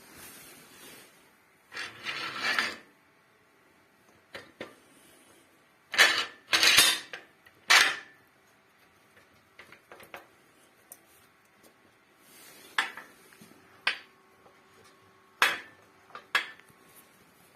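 Scattered metal clanks, clicks and short scrapes of the metal parts of a home-built angle-grinder cut-off saw being handled. The loudest knocks come about six to eight seconds in. The grinder motor is not running.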